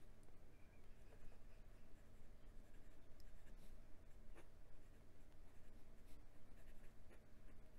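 Fine steel nib of a Penbbs 456 fountain pen faintly scratching across notebook paper as words are written, over a low steady hum.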